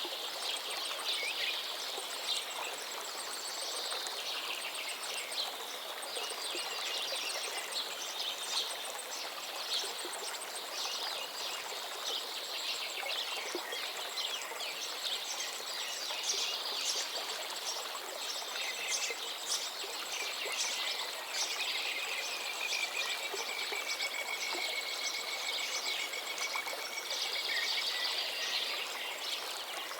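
Steady rush of running water from a stream or small waterfall, with many songbirds chirping and singing over it; one bird gives a long trill about two-thirds of the way through.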